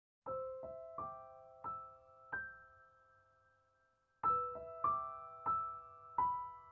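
Background music: a slow, soft piano melody of single notes that ring out and fade. It pauses briefly about halfway, then carries on.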